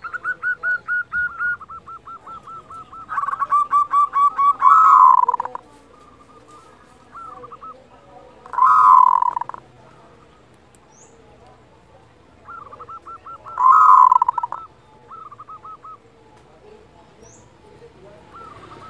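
Zebra dove (perkutut) giving its "kerot" call: bouts of fast, stuttering coo notes, three of which end in a louder, falling coo.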